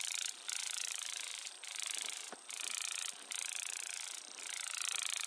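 Grasshoppers clicking: long runs of rapid, dry, high-pitched clicking, nearly constant, broken by short pauses every second or so.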